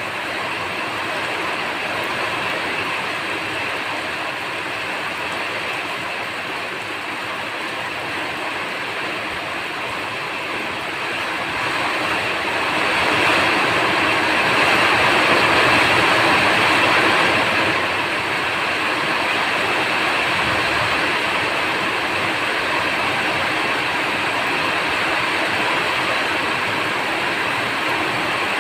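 Steady rain falling, a continuous even hiss that grows heavier for several seconds in the middle, then eases back.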